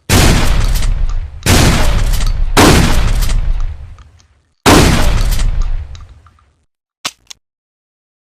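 Trench shotgun fired four times, each blast followed by a long echoing tail, the shots uneven in spacing. Two short mechanical clicks follow near the end.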